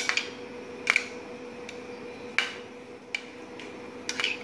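Metal spoon stirring custard and chocolate sauce in a glass bowl, clinking sharply against the glass every second or so, with a short cluster of clinks near the end. A steady low hum runs underneath.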